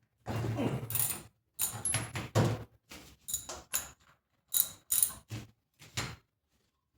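A wrench working on the spark plug of a 1968 Homelite Super XL chainsaw: metallic clicks and clinks in about ten short bursts of ratcheting and tool-on-metal contact.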